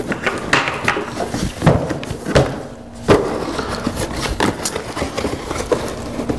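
Cardboard box being handled and opened: flaps scraping and rubbing, with irregular knocks and rustles as the box is turned over and pulled apart.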